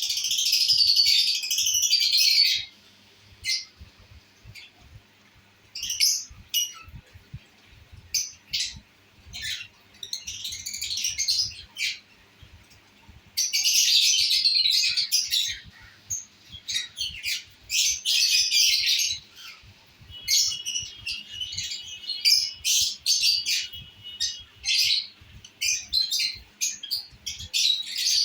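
Lovebirds chattering in shrill, high-pitched bursts of a second or two, with short single chirps in between.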